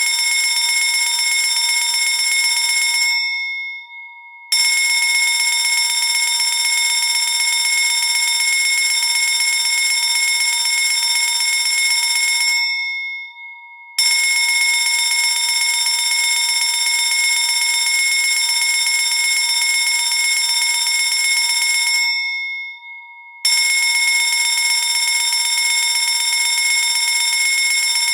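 Electric fire alarm bell ringing continuously and loudly. Three times it stops, each time dying away over about a second, then starts again after a short pause, roughly every nine to ten seconds.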